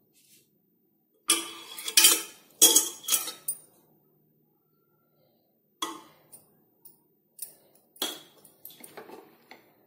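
Metal spoon clinking and scraping against the inside of a metal pressure cooker as ghee is knocked off it into the pot. A quick cluster of sharp clinks comes first, then a short pause, then a second run of lighter taps.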